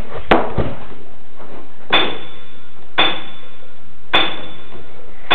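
A series of sharp knocks or clinks, one about a third of a second in and then roughly one a second, the later ones each leaving a brief high ringing.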